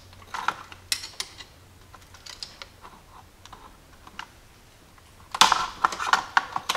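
Scattered light clicks and small rattles of a screwdriver prying at a plastic throttle-cable clip, then a quicker, louder run of clicking and rattling near the end as the clip is worked loose.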